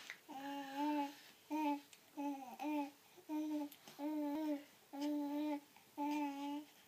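A voice cooing in short, steady-pitched hums, about eight in a row, like the call of a wood pigeon.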